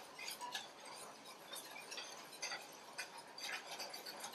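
Wire whisk stirring butter into thick red pepper coulis in a stainless steel bowl: faint, irregular ticks and clinks of the whisk's wires against the metal.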